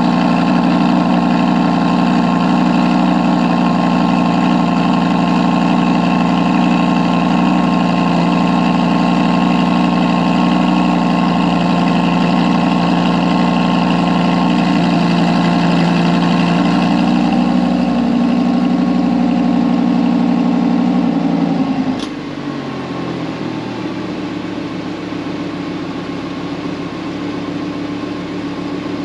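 Audi R8 V10 performance's 5.2-litre V10 idling steadily at a raised cold-start idle. About three-quarters of the way through, with a short click, the idle steps down in pitch to a lower, quieter idle as the engine comes off its cold-start fast idle.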